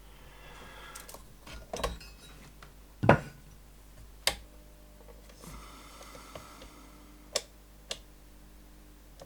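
Small tools being handled on an electronics workbench: scattered light clicks and taps, the loudest about three seconds in, with a brief soft hiss about five and a half seconds in.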